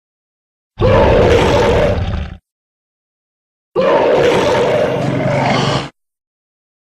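Two creature roar sound effects for the Sharkgator monster, each lasting about two seconds and cut off cleanly, with dead silence before, between and after them.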